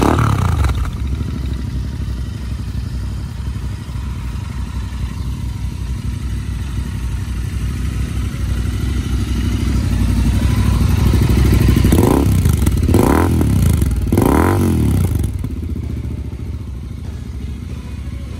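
Royal Enfield 650 parallel-twin engine running through Lextek aftermarket silencers. It is revved once at the start, idles, then is blipped three times in quick succession about twelve seconds in, each rev rising and falling, before settling back to idle.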